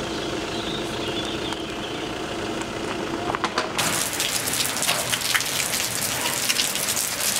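Rain falling steadily, with many short sharp drop hits. About four seconds in it gets louder and brighter.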